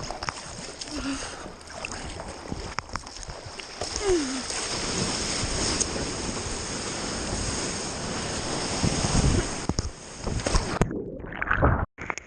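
Sea water rushing and splashing around a kayak at sea, with scattered sharp splashes. The sound cuts off abruptly near the end.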